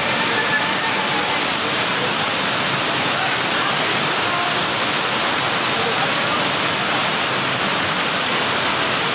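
Loud, steady rush of fast-flowing muddy floodwater churning and pouring over a paved floor.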